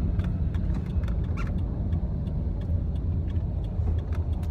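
Road and engine noise heard inside a car's cabin while driving on a freeway: a steady low rumble with a few faint clicks.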